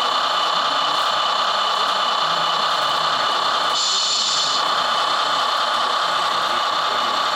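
Radio-controlled model construction machines running: a steady mechanical whir and hiss, with a brief sharper, higher hiss about four seconds in.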